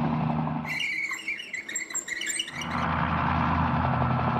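Helicopter running, a steady low drone. About a second in it gives way for nearly two seconds to quick, high chirps, then the drone returns.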